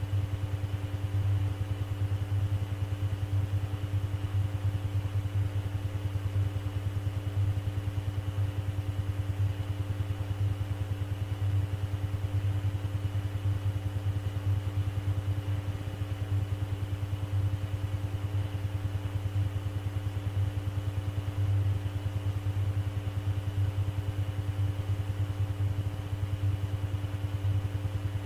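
Steady low electrical hum with a few fainter higher tones over light hiss: the background noise of an air traffic control radio recording while no one is transmitting.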